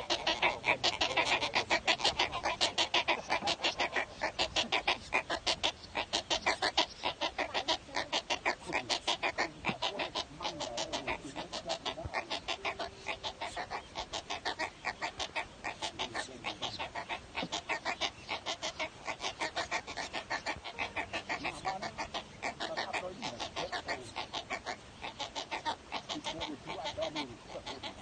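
Downy wading-bird nestlings in a crowded nest, several calling at once in rapid, continuous clucking pulses, somewhat louder in the first several seconds.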